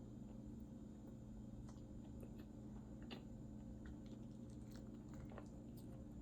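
A person chewing food close to the microphone, with small wet mouth clicks scattered through, over a steady low hum.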